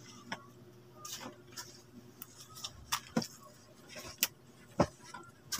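Soft rustling with a few irregular light clicks and taps, from quilted fabric doormats being handled in a stack.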